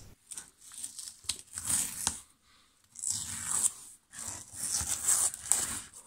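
Faint rustling and crinkling handling noise in a string of short, uneven bursts with brief silent gaps.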